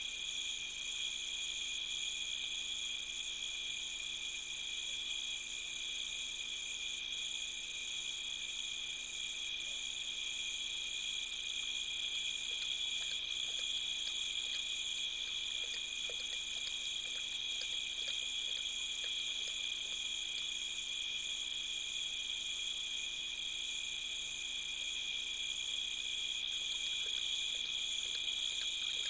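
Night insect chorus, crickets trilling steadily and without pause as several overlapping high-pitched tones.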